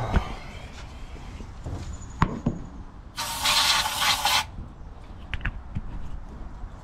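One hiss of an aerosol spray can, a little over a second long, about three seconds in, sprayed into the carburettor of a 1954 Ford F250 engine to prime it with fuel for the next cranking attempt. A few light clicks and knocks come before and after it.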